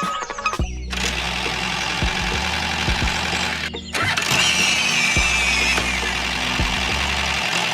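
Miniature DIY tractor running, a steady engine-like noise with a low hum, cut off briefly twice; about four seconds in a thin squeal glides down in pitch over it.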